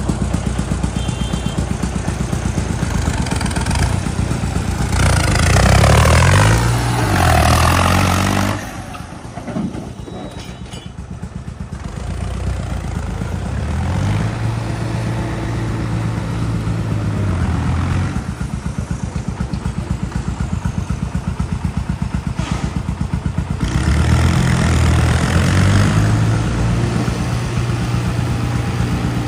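New Holland 3630 tractor's diesel engine running. It revs up with rising pitch about five seconds in, drops sharply to a quieter steady run at about eight and a half seconds, and grows louder again near the end.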